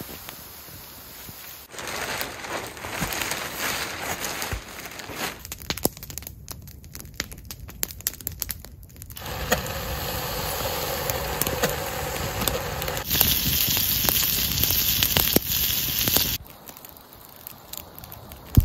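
Several short stretches of camp sounds that change abruptly: spruce boughs being handled and snapped, then a wood fire burning in a stainless-steel Kelly Kettle with flames coming out of its chimney, and near the end a wood campfire crackling.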